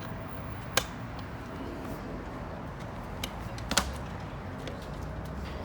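Sharp clicks and knocks from a bolt and hand tools against a metal seat bracket while the bolt is being started: one about a second in and two close together near the middle, over a low steady hum.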